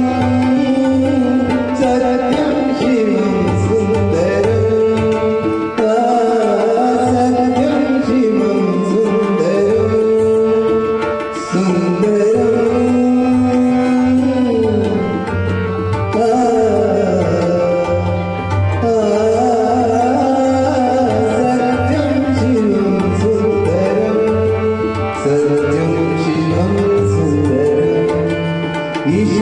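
A devotional bhajan: a man sings in long, bending phrases over tabla drumming and a harmonium.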